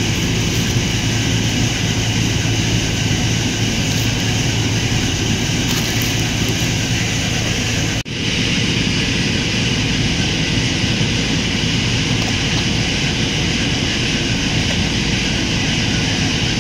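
A steady, loud mechanical drone with a constant low hum, unchanging throughout, that cuts out for an instant about eight seconds in.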